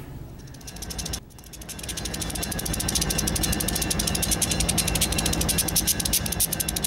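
EMD GP35 diesel locomotives approaching, their turbocharged 16-cylinder engines a steady low rumble that grows louder from about a second in. Over it runs a rapid, even clicking.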